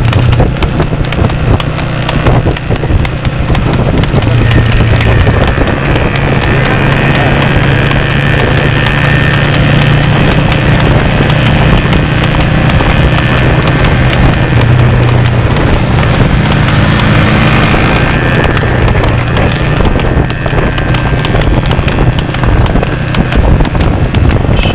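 A horse's hooves clip-clopping fast and steady on a paved road as it trots in harness, pulling a two-wheeled cart, over a continuous low hum.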